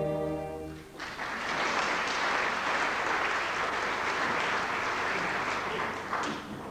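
Theatre audience applauding after the orchestra's held final chord cuts off just under a second in; the clapping dies away near the end.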